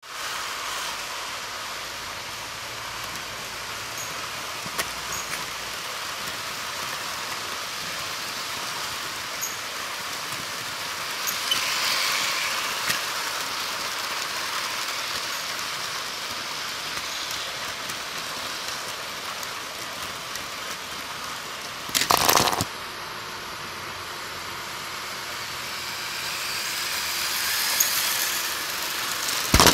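Lego trains running on plastic track: a steady whirring rush from the motors and wheels, with scattered light clicks. It swells a little now and then, and a loud clatter lasting about half a second comes about two-thirds of the way through.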